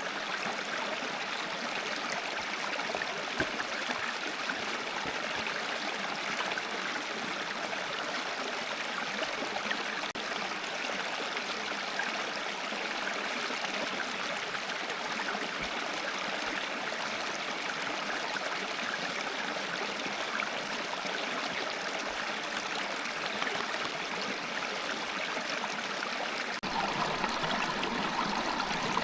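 Small woodland brook running steadily over stones, an even rush of water. About two seconds before the end the sound grows slightly fuller, with some low rumble added.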